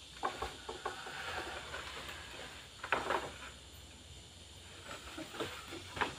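Bamboo poles knocking and clattering against each other as they are laid onto a bamboo hut's roof frame: a few knocks near the start, a louder cluster about three seconds in, and two more near the end.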